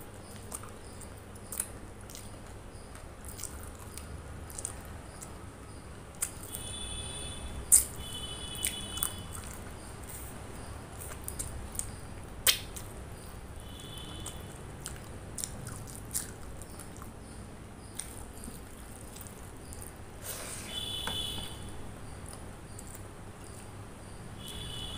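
Close-up mouth sounds of someone eating curry, rice and raw salad by hand: chewing with many sharp wet clicks and smacks. A short high chirping comes and goes several times in the background.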